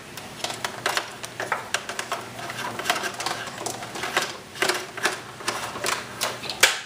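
Irregular light plastic clicks and taps as a pump's power cord is threaded through an aquarium's plastic hood and rear filter compartments, with a sharper click near the end.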